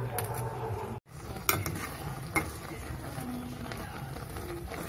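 A spatula stirring jackfruit chunks through hot brown-sugar syrup in a metal pot, scraping and sloshing, with two sharp knocks of the utensil against the pot about a second and a half and two and a half seconds in. The sound cuts out for an instant about a second in.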